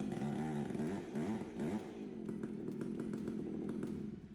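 Chainsaw running under load as it cuts, its engine pitch wavering in the first couple of seconds and then holding steady, cutting off near the end.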